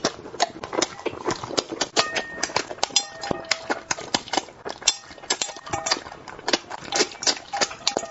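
Close-miked eating sounds of someone eating spicy braised carp: fast, irregular lip smacks and chewing clicks.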